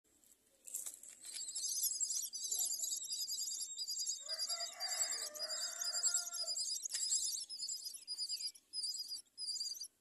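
Common myna nestlings begging for food with a rapid, continuous stream of high-pitched calls that break into shorter bouts near the end. A lower-pitched call overlaps for a couple of seconds in the middle.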